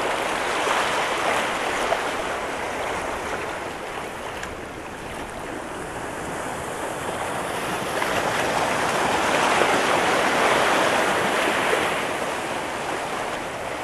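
Sea waves surging and washing over the rocks of a breakwater: a steady rush that eases off and then builds to a louder surge about two-thirds of the way through before subsiding.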